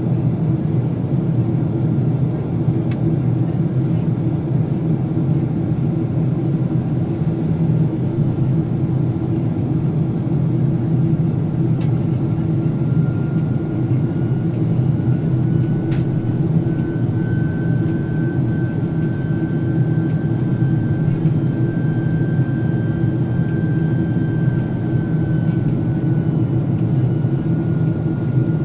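Cabin noise of a Boeing 767-400ER airliner in flight: a steady drone of engines and airflow. A faint high whine comes in about halfway through, rises a little, and falls away near the end.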